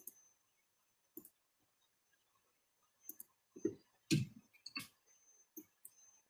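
Faint, irregular clicks and light taps from a computer mouse and keyboard, about eight of them, the loudest around four seconds in.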